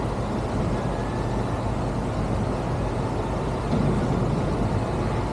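Steady background rumble of city traffic and engines, with a low, even hum underneath.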